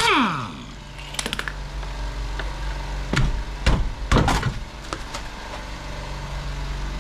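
Air compressor running with a steady low hum, with scattered metallic clicks and knocks of tools being handled, the loudest a few seconds in.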